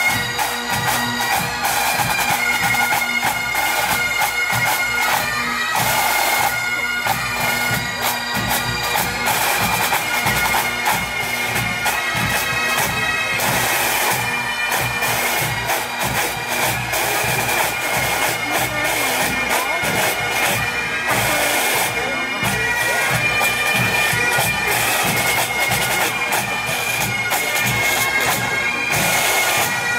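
Massed pipe bands playing: Great Highland bagpipes sounding a melody over their steady drone, with snare, tenor and bass drums beating time.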